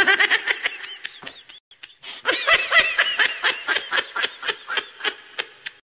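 High-pitched rapid snickering laugh, a fast run of short giggling pulses that pauses briefly about two seconds in and then resumes.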